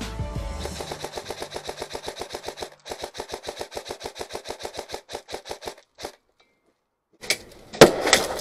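Airsoft rifle firing a long, rapid, evenly paced stream of shots with one brief break, then stopping. Near the end come a few loud knocks and a scrape against a wall.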